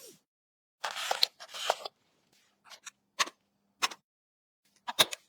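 Small hard parts being handled and fitted during a build: two short scraping rustles, then a few separate sharp clicks.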